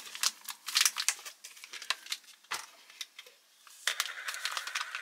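Crinkling and rustling of an MRE drink-powder pouch being handled, with a single knock about halfway through and a quieter stretch before the crinkling picks up again.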